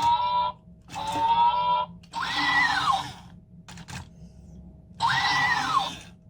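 Remote-control toy robot's electronic sound effects: two short buzzy tones, then two identical chirps that rise, hold and fall, with a couple of clicks between them. A faint steady whine runs underneath.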